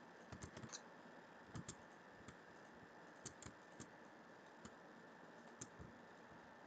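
Faint clicks of computer mouse buttons, about a dozen in irregular quick clusters, over a low steady hiss.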